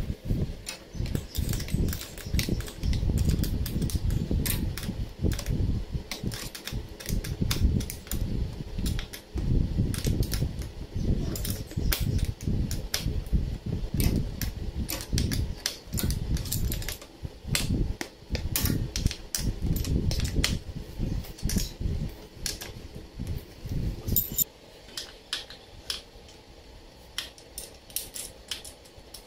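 Spanner clicking and clinking against a bolt and the metal footrest bracket of a motorcycle as it is worked loose or tightened, many quick irregular ticks, over a low rumble that drops away suddenly about 24 seconds in.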